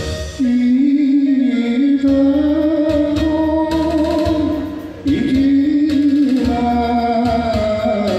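Enka song: a singer holds two long, wavering notes over instrumental backing, with a short break about five seconds in.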